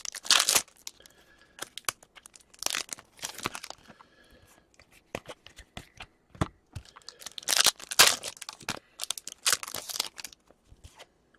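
Trading card pack wrappers being torn open and crinkled by hand, in several separate rips with crackling between them.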